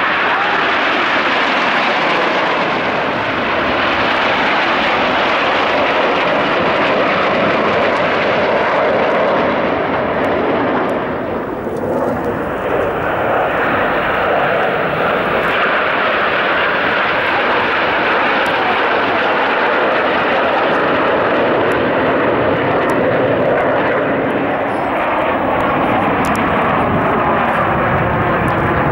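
Formation of Aermacchi MB-339 jet trainers flying over, their turbojet engines making a loud, steady jet roar that dips briefly about twelve seconds in. Near the end the roar takes on a sweeping, swirling tone as the jets pass.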